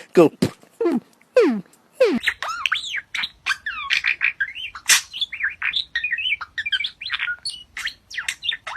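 Birds chirping and twittering in quick, dense, high-pitched notes that start abruptly about two seconds in. Before that come a few falling, voice-like calls ending the chanted "go".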